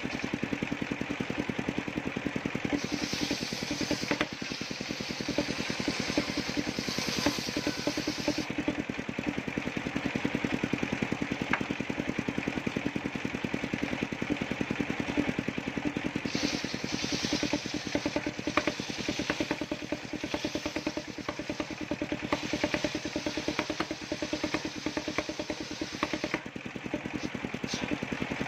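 Engine-driven table circular saw running steadily, its large blade ripping coconut trunk into boards. Each cut lays a high hiss over the steady engine note, in two longer stretches and a few shorter ones.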